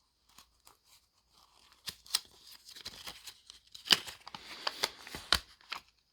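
Paperwork and packaging being handled and unfolded: paper rustling and crinkling with scattered sharp clicks and taps, starting about two seconds in.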